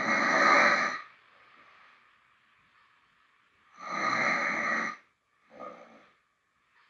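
A man snoring in his sleep: a long snore at the start and another about four seconds in, followed by a short one soon after.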